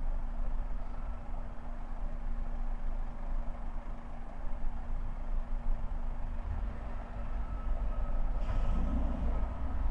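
Traffic and engine noise on a city street, a steady low rumble with a faint even hum through it. A brief louder thump comes about eight and a half seconds in.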